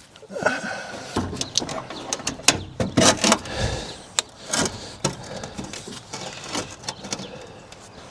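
Irregular clunks, clicks and scrapes of hands-on work in a pickup's engine bay as a new car battery is set into its tray and the hold-down is handled.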